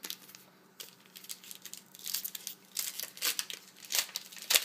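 Shiny foil wrapper of a baseball card pack crinkling and tearing as it is opened: a run of irregular sharp crackles from about two seconds in, the loudest just before the end.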